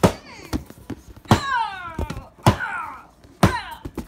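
Cardboard action-figure boxes with plastic windows knocking together as they are handled and stacked: a run of sharp knocks, several followed by a short falling squeak of the boxes rubbing.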